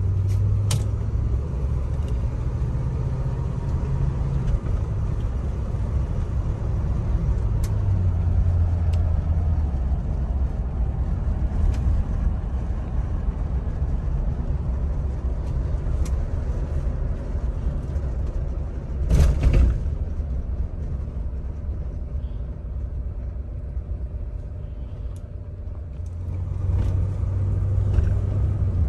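1977 Cadillac Eldorado's 425 cubic-inch V8 running under way, heard from inside the cabin as a steady low rumble with road noise. It eases off about two-thirds of the way in and builds again near the end, with one brief loud thump just before the easing.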